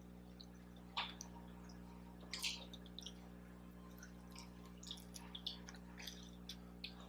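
Close-miked eating sounds: wet chewing and mouth smacks, with scattered short clicks and two louder smacks about a second in and about two and a half seconds in.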